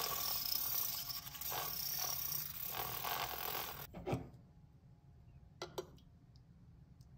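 Handheld electric milk frother whirring in milk in a stainless steel jug, with a thin high whine over the churning, cutting off sharply about four seconds in. A single knock follows, then two short clicks.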